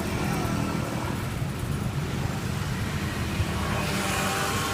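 Steady low outdoor background rumble.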